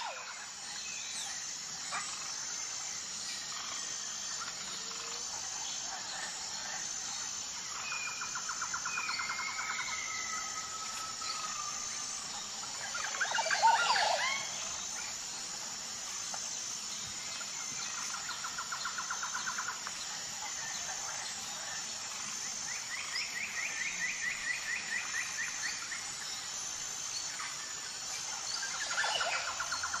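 Birds calling over a steady high-pitched drone. There are rapid repeated trills, slurred whistled notes, and a louder burst of calls about fourteen seconds in.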